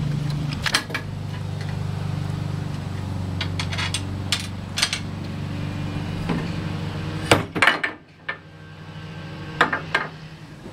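Metal clinks and knocks of a socket wrench and loosened bolts against the cast-iron parts of a table saw's trunnion assembly, a dozen or so sharp strikes scattered through, over a steady low hum that stops about eight seconds in.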